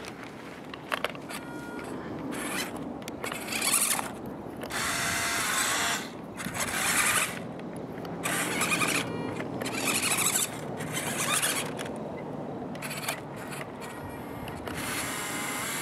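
WPL C24 1/16 RC rock crawler's small electric drive motor and gearbox whining in repeated bursts of about a second, with short pauses between, as the throttle is worked while the truck struggles to climb the dirt slope.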